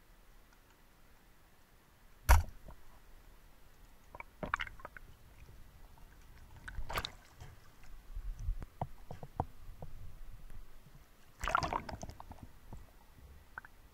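Underwater, a short invert-roller speargun with 16 mm rubber bands fires with one sharp, loud clack about two seconds in. Scattered knocks and clicks follow, with a denser clatter of knocks near the end.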